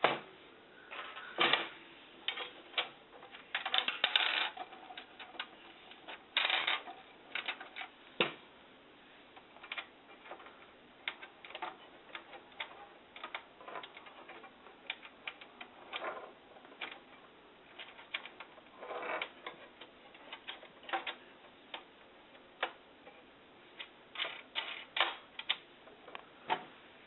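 Irregular clicks, taps and knocks of plastic and glass parts being handled as the Fresnel lens is set back into an overhead projector's body, with a few louder knocks scattered through.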